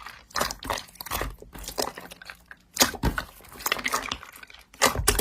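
Slime being squished and pressed by hand: irregular sticky crackles and pops, with a louder click about three seconds in and another near the end.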